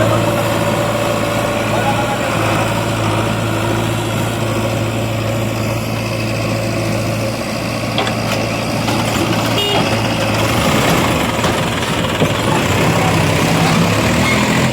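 Heavy diesel engine idling steadily with a low hum, which weakens about two-thirds of the way in.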